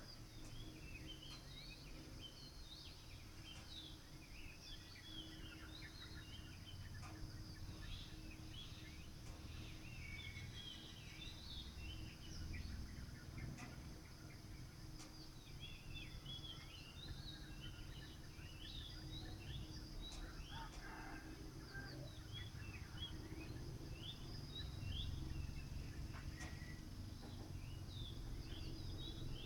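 Dawn chorus of many small birds chirping in quick, short calls over a steady low background rumble.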